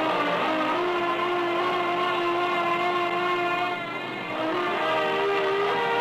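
Film-score music: long held notes that change pitch in steps, with a brief dip in level a little under four seconds in.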